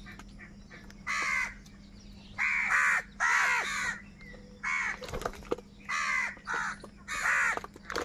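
House crows cawing: about seven harsh, hoarse caws in quick succession, some short and some drawn out, from several birds in a flock.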